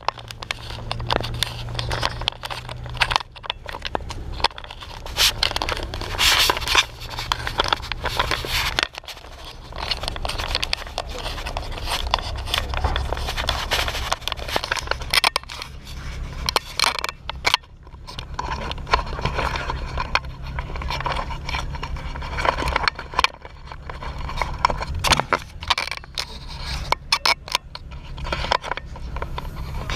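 Action camera being handled and rubbed against clothing: irregular scraping, rustling and knocks on the microphone, over the steady low hum of a car engine running.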